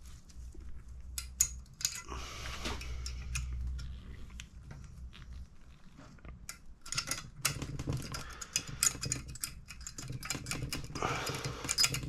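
Scattered light metallic clicks and scrapes of small steel parts and tools on a cylinder head as the valve keepers are freed from a compressed valve spring and picked out with a magnet.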